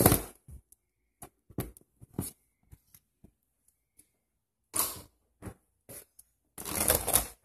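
Scattered light clicks and clacks of loose metal track links for an RC crawler tank being handled on a tabletop, irregular and a fraction of a second apart. Near the end there is a short spell of louder rattling and handling.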